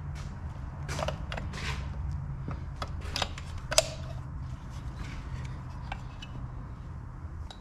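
Scattered light metallic clicks and scrapes of a screwdriver prying and tapping inside an aluminium Chrysler 727 transmission case, the sharpest click a little before the middle, with a short ring. A steady low hum runs underneath.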